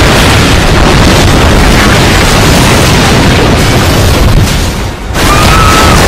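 Loud, continuous rumbling crash of a huge tsunami wave surging through buildings and debris. It dips briefly about five seconds in, and a short high tone follows near the end.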